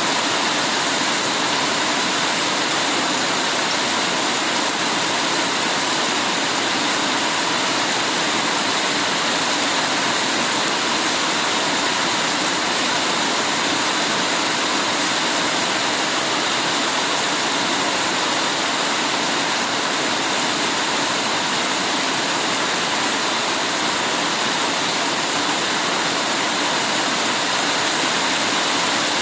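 Heavy rain pouring steadily: an even, unbroken hiss.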